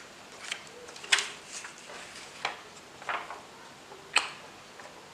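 Short scattered clicks and light knocks of disassembled keyboard parts being handled and set down, about six in all, the sharpest about a second in and just after four seconds.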